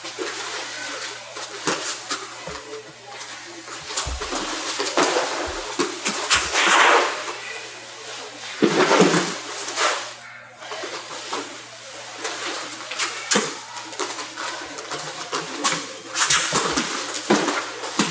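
Two grapplers in gis moving on a training mat: cloth rustling and scuffing in repeated short bursts, with a few low thumps of bodies and bare feet landing on the mat partway through.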